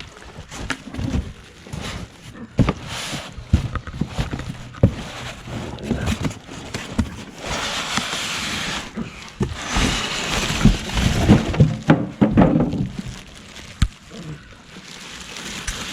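Unpacking a generator from its cardboard box: irregular knocks and thumps of the box and packing being handled. Two longer stretches of rustling and scraping come about halfway through, as the packing is slid and pulled away.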